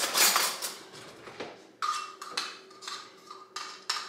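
A spoon scoops baking powder with a short scraping rustle, then clinks against a dish in a run of quick, ringing taps, about two or three a second, as the powder is knocked off over the chicken wings.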